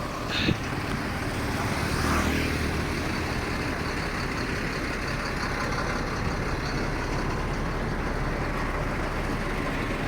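A vehicle engine running steadily, with a short knock about half a second in.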